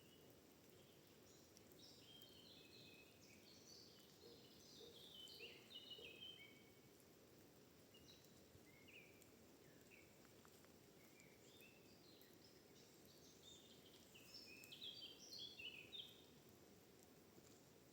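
Faint songbird song: two long runs of quick, high, stepping notes, one in the first few seconds and another near the end, over a steady low background hiss.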